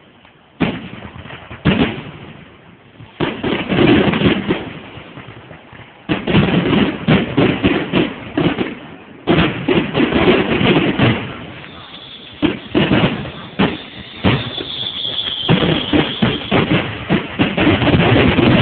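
Aerial fireworks shells bursting: separate booms with crackle after them at first, then a rapid, dense run of booms and crackling from about six seconds in.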